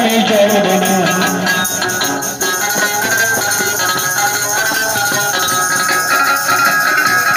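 Street folk music: a long-necked plucked lute played through a small amplifier, with a barrel drum and shaken hand percussion. A man's voice sings for the first second or so, then the instruments carry on alone.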